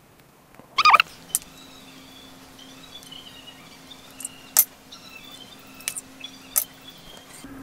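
A turkey gobbling once, a short rapid warble about a second in. A few sharp clicks of a spoon against a metal bowl follow, over a low steady hum.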